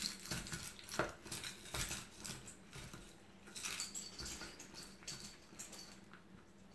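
Garlic cloves being rolled inside a red silicone tube garlic peeler on a countertop: an irregular run of faint crackles and clicks as the papery skins come off.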